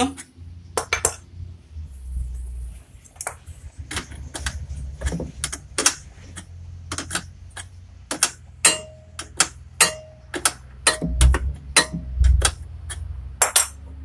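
Irregular metal clicks and clinks, roughly two a second with a few ringing briefly, as a wrench works the stop screw on a Samsung top-loading washer's clutch actuator. The screw has worked loose, which keeps the actuator from shifting the washer from wash to spin, so only the pulsator turns.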